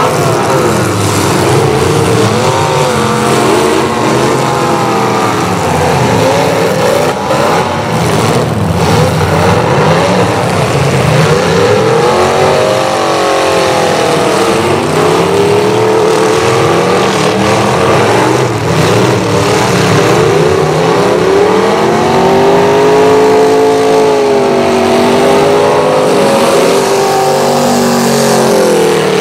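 Several demolition derby cars' engines revving at once, their pitches rising and falling over one another, with a few short bangs.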